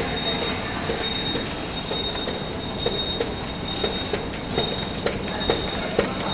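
Packaging conveyor line and machinery running: a steady mechanical hum with a continuous high whine. From about three seconds in come sharp knocks, roughly two a second.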